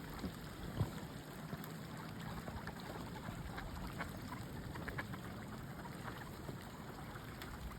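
Running water flowing steadily, with scattered faint ticks and drips.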